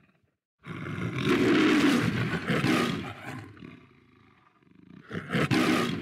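MGM Leo the Lion logo roar, a recorded lion roaring twice. A long roar starts after a moment of silence and fades away, then a shorter second roar comes near the end.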